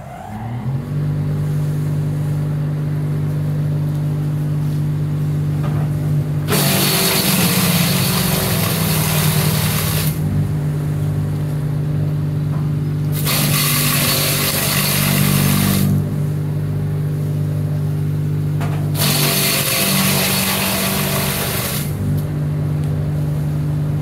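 Hansa C3e electric wood chipper: its 2000 W motor comes up to speed in the first second and then runs with a steady hum. Three times, fresh-cut leafy branches are fed in and chipped in a loud rush of noise lasting about three seconds each.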